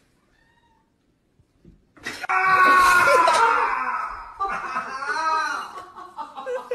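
A cat yowling: one long drawn-out call starting about two seconds in, followed by shorter wavering calls.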